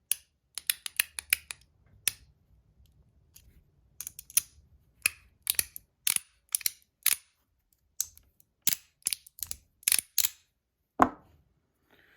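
Mackie CP3 magnetic fidget being snapped open and shut as a clicker: sharp metal clicks in quick runs and pairs, with one heavier knock near the end.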